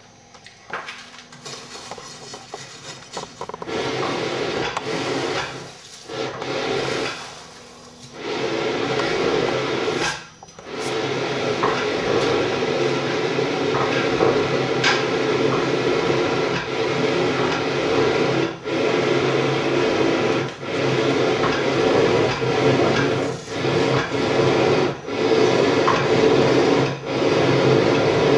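Blower driving air through a blacksmith's forge fire: a steady rushing noise with a low hum. It starts and stops a few times in the first ten seconds, then runs on with brief dips every second or two.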